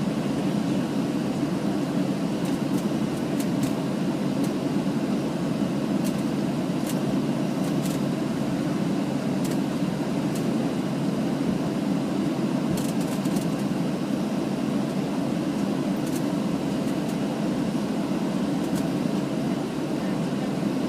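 Steady low cabin rumble inside a Boeing 737 taxiing after landing, heard from a forward window seat, with a few faint ticks and rattles.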